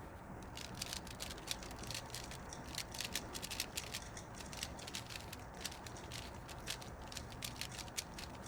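Light, irregular clicking and rattling, several sharp clicks a second.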